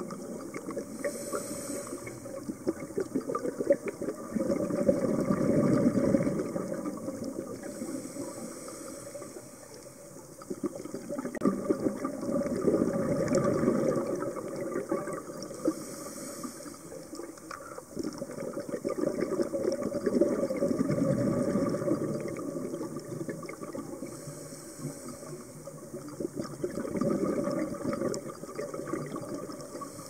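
Scuba diver breathing through a regulator, recorded underwater: a short hiss on each inhale, then a long bubbling gurgle of exhaled air, about every eight seconds.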